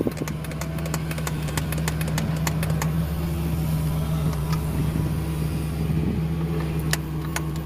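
Isuzu 10PE1 diesel engine idling steadily, with scattered sharp clicks over the top.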